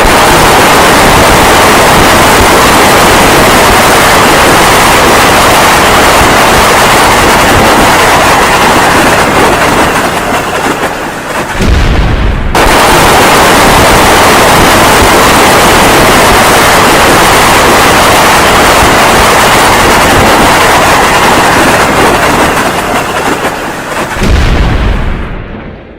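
Long explosion sound effect: loud, dense blast noise that starts suddenly. About 11 seconds in it thins to a low rumble, a second blast cuts in sharply a second or so later, and near the end it dies away into a low rumble.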